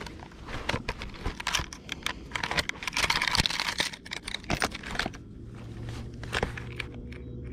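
Close handling noise of an angler in a kayak holding a bass and getting out a fish scale: a run of clicks, rustles and crinkles, busiest about three seconds in, then quieter with a faint steady low hum.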